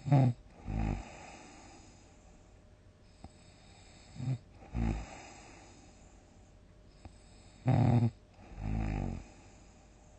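A sleeping person snoring loudly three times, about four seconds apart. Each breath gives a short, sharp, rattling snore followed by a lower, longer rumble. The third snore, near the end, is the longest.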